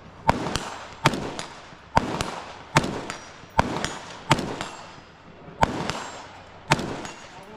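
Firearm shots at a shooting range: about eight sharp reports spaced roughly a second apart, each trailing off in an echo. A few fainter shots fall between them.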